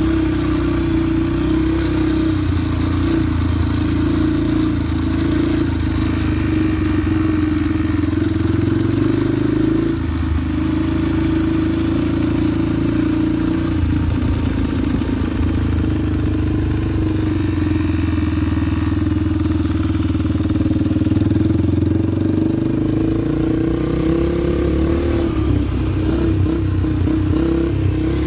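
Yamaha PW50 mini motorcycle's small two-stroke single-cylinder engine running steadily as it is ridden, with a few brief dips as the throttle eases and a slight rise in pitch later on.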